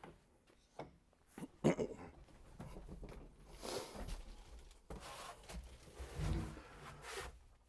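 A man climbing into a tractor cab: a few sharp clicks and knocks from the cab door in the first two seconds, then rustling and bumping as he steps up and settles into the seat, with a couple of grunts of effort.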